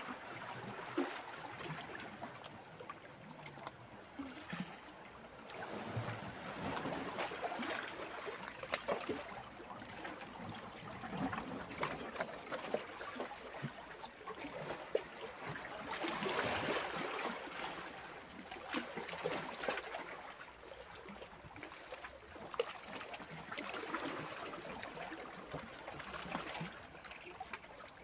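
Small sea waves lapping and trickling among shoreline boulders, with light splashes, the wash swelling and ebbing every few seconds.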